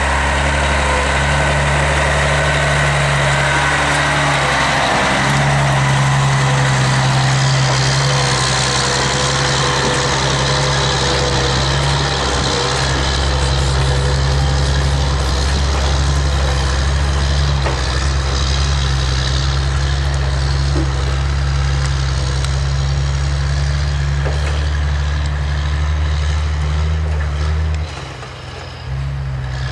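Log truck engine running steadily under a constant low drone. Near the end the sound briefly drops away and then comes back.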